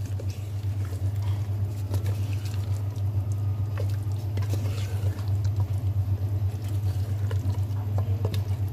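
Wooden spoon stirring thick chicken and yogurt masala in a clay pot, with irregular scraping and light knocks of the spoon against the pot, over a steady low hum.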